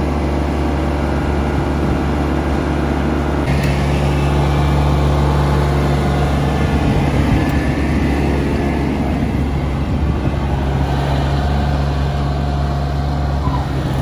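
Yanmar CA300S combine harvester running: a steady low engine drone with machinery noise over it, its note stepping up slightly a few seconds in.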